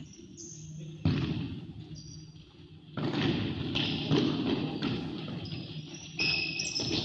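A futsal ball being kicked and thudding in an echoing sports hall, with sharp thuds about a second in, at three seconds and near the end, and shoes squeaking on the court floor in between.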